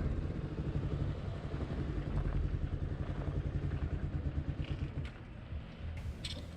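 Low, uneven vehicle rumble that drops away about five seconds in.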